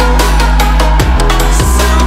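Electronic music with a heavy, sustained bass line and steady drum hits, without vocals.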